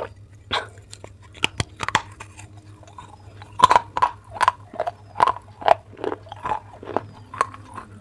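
Crisp, sharp crunches of baked clay pot being bitten and chewed close to the mouth. A few spaced bites come first, then a quick run of about two to three crunches a second from about halfway through.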